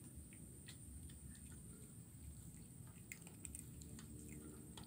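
Faint, irregular little clicks and crunches of a kitten chewing fish bones, over a quiet background hiss.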